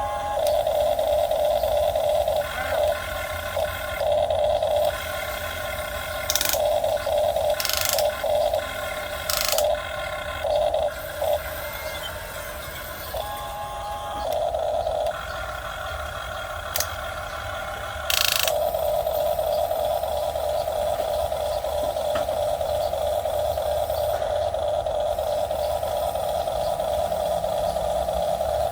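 Electric motors of a radio-controlled model excavator whining as it works, cutting in and out several times and changing pitch as different movements are driven, with a few sharp clicks.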